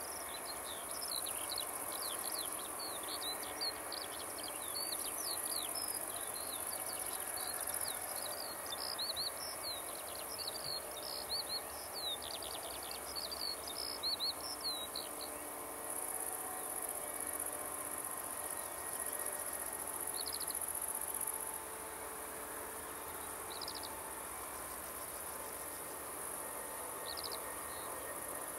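Outdoor meadow ambience: insects in the grass make a steady, very high chirring that swells and fades, and a songbird sings quick rising and falling chirps through the first half, then a few single notes. Beneath lies a faint steady hum from the distant taxiing airliner's idling jet engines.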